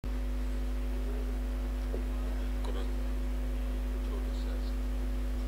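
Steady electrical mains hum, with faint voices now and then in the background.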